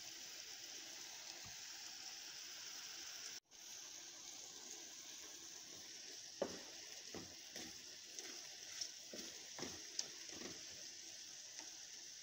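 Faint steady sizzle of chicken frankfurter pieces and tomato paste frying in a pan. From about halfway, a wooden spoon knocks and scrapes against the pan several times as the mixture is stirred.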